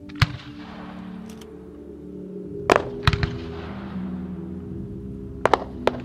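Fireworks shells going off in a handful of sharp bangs, the loudest near the start and about three seconds in, each trailing off in a rolling echo, over music playing.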